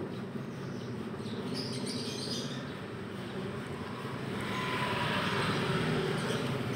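Steady low background rumble, with faint high chirps about two seconds in; the rumble grows louder over the last couple of seconds.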